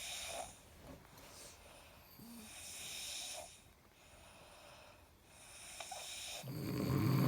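Sleeping people snoring: slow breaths with a hissing airflow about every three seconds, then a loud, deep snore near the end.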